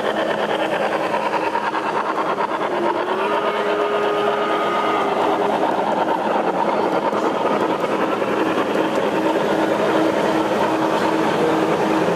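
Gauge 1 model trains running on the layout: a steady mechanical running noise from their motors and their wheels on the track. About three seconds in, a short tone slides up and holds for about two seconds.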